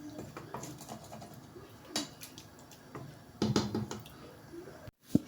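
Faint kitchen handling sounds: a light click about two seconds in and a short, louder clunk about three and a half seconds in, over quiet room noise.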